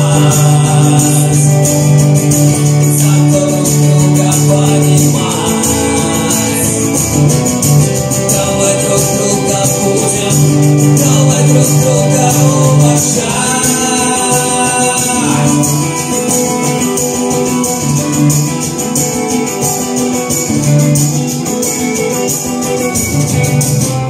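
Steel-string acoustic guitar strummed with a man singing live into a microphone; the music stops abruptly right at the end.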